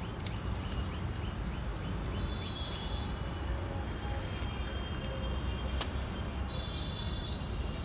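Outdoor ambience: a steady low rumble with faint, high bird chirps, a few short ones and two thin held notes, around a third of the way in and near the end.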